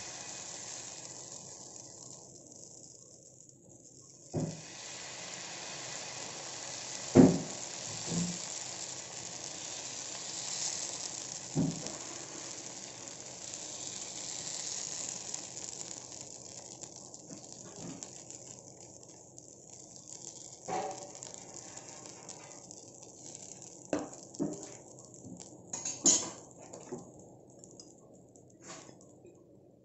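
Adai batter sizzling on a hot dosa griddle as a ladle spreads it out, a steady hiss that thins for a moment early on and then comes back. A dozen or so short knocks of the ladle against the griddle are scattered through it, the loudest about seven seconds in.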